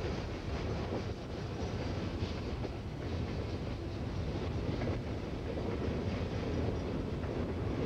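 Freight train of boxcars rolling past: a steady rumble of steel wheels on the rails, with faint clicks as the wheels cross the rail joints.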